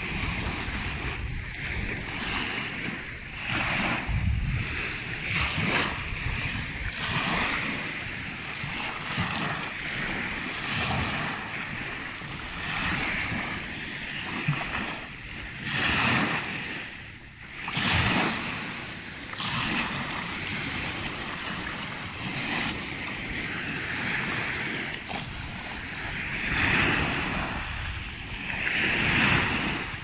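Small waves breaking and washing up onto a sandy shore, surging and ebbing every few seconds.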